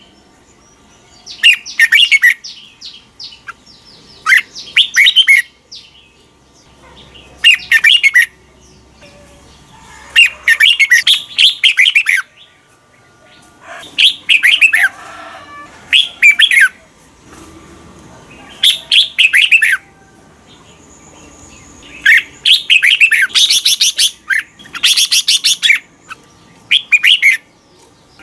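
Red-whiskered bulbul singing: short, bright whistled phrases of about a second each, repeated every two to three seconds with quiet pauses between, a few longer bursts near the middle and later on.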